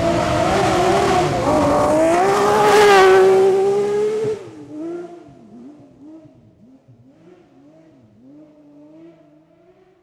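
Peugeot Cosworth rally car engine at full throttle on a gravel forest stage, revving up and down through gear changes and loudest about three seconds in. A little after four seconds it drops away sharply, and the fainter engine is heard still revving up and down as the car drives off into the distance.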